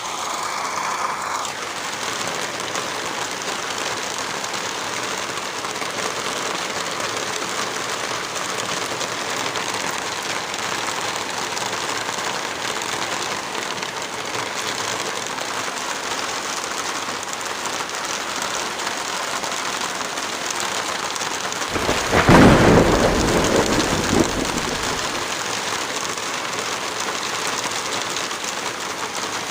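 Steady heavy rain, with a roll of thunder about two-thirds of the way through that rumbles for around three seconds before fading back into the rain.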